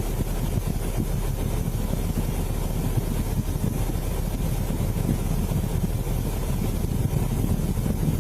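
Steady low rumble of a running vehicle, engine and road noise with no change in pitch.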